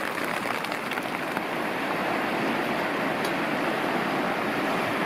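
Steady rushing of a river in spate, with rain falling and a few light drops ticking.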